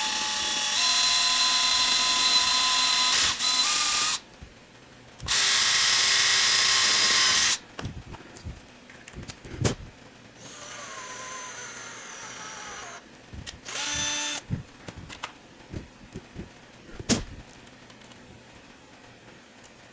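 Handheld electric drill running in bursts, drilling holes in metal: two long loud runs in the first eight seconds, then a quieter run whose pitch sags near the middle and a brief burst after it, with a few sharp clicks between.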